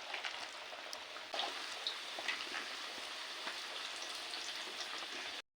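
Food frying in hot oil for puri and pakoras: a steady sizzle with frequent small crackles and pops. It cuts off suddenly near the end.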